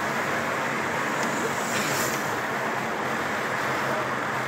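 Steady engine hum and road noise inside a moving car's cabin.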